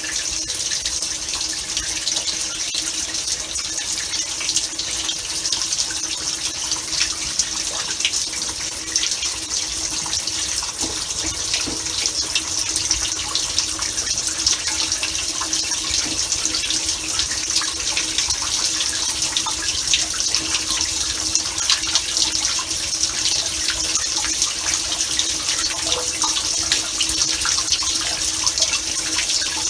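Samsung Waterwall dishwasher running a wash cycle: water spraying and splashing inside the tub with a steady pump hum.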